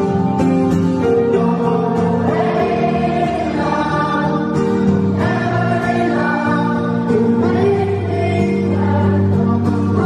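Live song: a male singer's voice over acoustic guitar, heard through a concert-hall PA from the audience.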